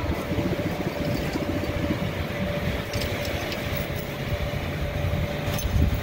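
Tow truck engine running steadily: a low rumble with a steady whine held over it.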